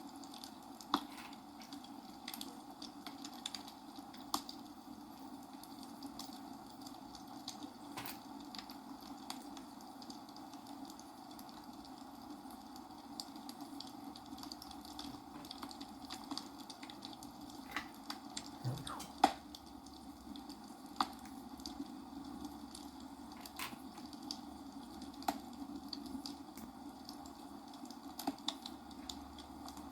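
Small plastic clicks and rattles of building bricks being handled and pressed together, scattered irregularly, a few sharper snaps a little after the middle. Under them runs a steady background hiss.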